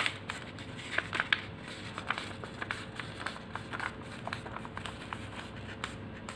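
A strip of origami paper being handled and folded by hand: irregular soft crinkles and crackles of the paper, several a second.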